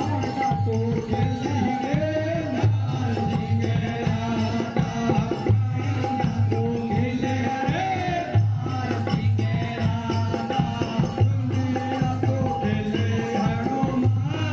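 Live Rajasthani devotional folk music: a dhol drum beats a steady repeating rhythm while a man sings through a microphone and loudspeakers.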